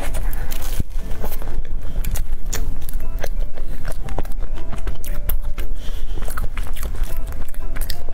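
Close-miked biting and chewing of a re-toasted flaky pastry topped with chestnut cream. The crisp layers give many quick, irregular crackles and crunches.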